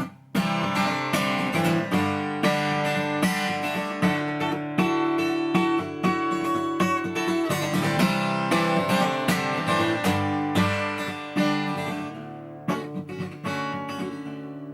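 Acoustic guitar strummed in a steady rhythm as a solo instrumental passage between sung verses, with a brief break just after the start and another near the end.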